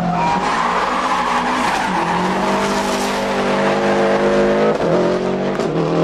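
Rally car engine at high revs, its pitch climbing over several seconds with two brief dips near the end, over tyre noise on the road surface.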